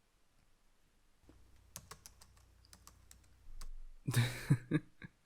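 Typing on a computer keyboard: scattered keystrokes start about a second in and stop after a few seconds, followed by a brief, louder noise about four seconds in.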